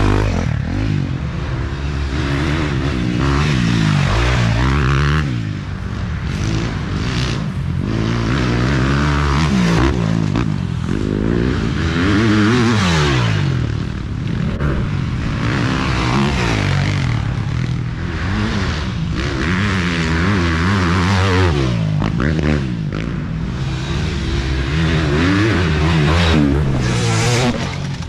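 Dirt bike engine heard from on board, revving up and down over and over as the throttle is worked and gears change on a rough trail, with clattering and wind noise over it.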